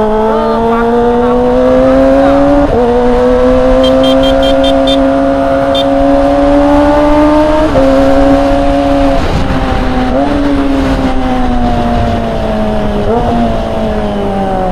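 Kawasaki Ninja ZX-25R's inline-four engine through a Yakuza R7 aftermarket exhaust, heard from the saddle while riding: the engine note climbs over the first couple of seconds, holds at a steady pitch with brief dips about three, eight and thirteen seconds in, and falls away near the end as the bike slows.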